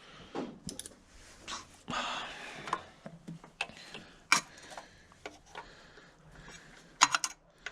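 Socket wrench on a short extension working an ignition coil mounting screw: scattered metallic clicks and scrapes of the tool, with a quick run of clicks near the end.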